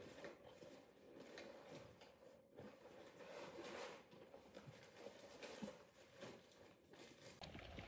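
Faint rustling of paper and newspapers with light knocks of cardboard boxes being handled, over a low steady hum.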